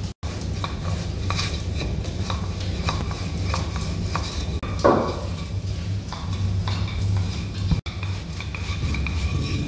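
Hands working dough on a wooden table: scattered light taps and knocks, with one louder thump about five seconds in, over a steady low hum.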